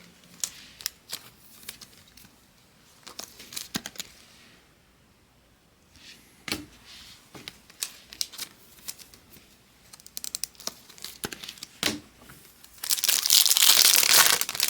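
Scattered light clicks and rustles of trading cards being handled, then near the end a loud tearing and crinkling as a card pack wrapper is ripped open.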